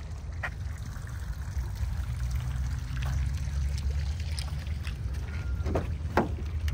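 A steady low rumble, with the car's front door handle pulled and the door unlatching about six seconds in.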